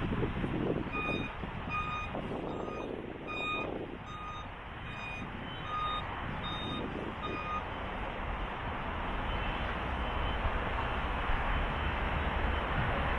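Vehicle reversing alarm beeping about twice a second, starting about a second in and stopping after about seven seconds, over a steady rush of wind and construction-site noise.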